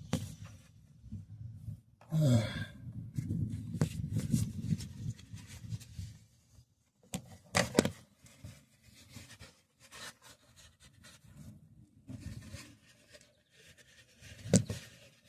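Rubbing and scraping as the oil filter mounting surface is wiped off under the car, with a short grunt about two seconds in and two sharp knocks, one near the middle and one near the end.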